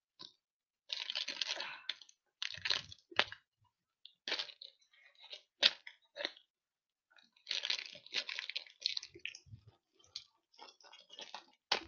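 Person chewing a crunchy almond cookie close to a headset microphone: irregular crunches and cracks with short pauses between bites.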